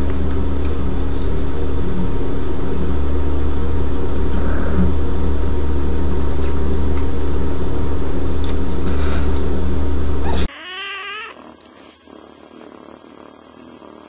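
A loud, steady low hum for about ten seconds that stops abruptly. Then a kitten gives one short meow, followed by soft purring as its chin is scratched.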